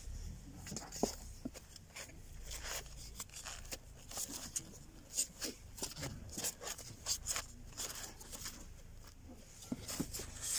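Record sleeves being flipped through and handled by hand: irregular rustles, taps and crinkles, many in quick succession, over a low rumble.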